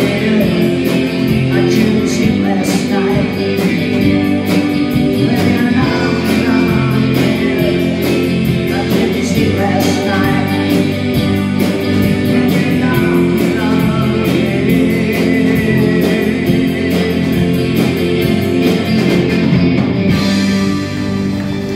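Live rock band playing: electric guitars, a drum kit keeping a steady beat, and a singing voice. The cymbals drop away near the end.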